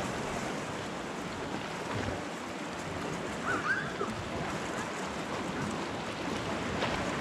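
Seawater washing and lapping against shoreline rocks, a steady wash, with some wind on the microphone.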